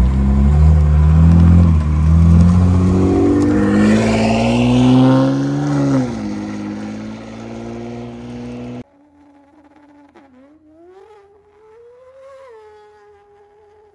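BMW M4's S58 twin-turbo straight-six pulling away hard through a custom stainless-steel exhaust, rising in pitch, then dropping about six seconds in and fading as the car moves off. About nine seconds in it cuts off suddenly, leaving a quieter wavering tone.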